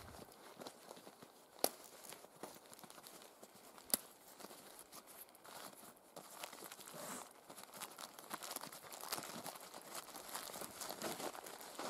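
Leather tinder pouch being handled and opened: the soft leather rustles and crinkles while its drawstring thongs are loosened, more busily in the second half. Two sharp clicks stand out, about one and a half and four seconds in.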